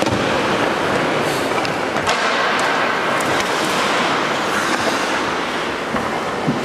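Ice hockey play on the rink: a steady scraping hiss of skates on the ice, with a few sharp clacks in the first half.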